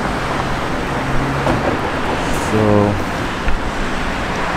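Street ambience of light road traffic at a small-town intersection, a steady wash of car noise. About two and a half seconds in comes a short, flat, pitched sound lasting a fraction of a second.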